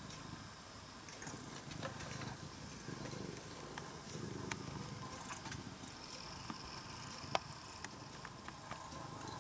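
A cat purring: a low rumble that swells and fades with each breath, with faint scattered clicks.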